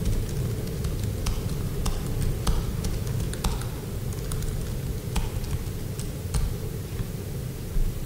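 Computer keyboard keys clicking in scattered, irregular strokes over a steady low hum of room noise.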